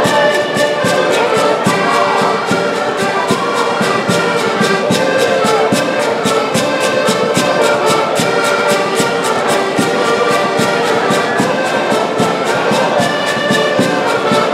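A group of button accordions playing a tune together, with a steady pulse of about four beats a second.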